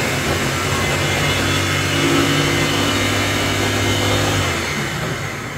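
Electric food chopper's motor running steadily with a low hum as it minces food. Near the end it is switched off and spins down.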